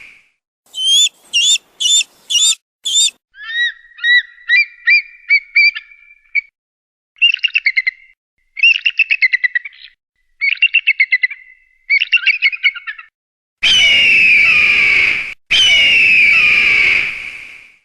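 Eagle calls: bursts of high, piping and chattering notes repeated in quick series with pauses between them, then two long, loud screams near the end.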